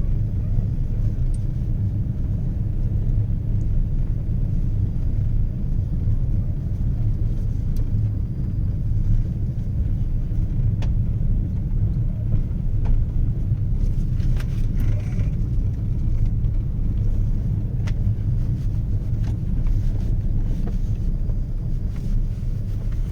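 Steady low rumble of a moving vehicle, with engine and road noise starting abruptly and running evenly, and a few faint ticks over it.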